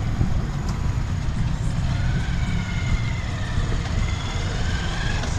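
Steady low rumble of a motor vehicle on the road: engine and road noise.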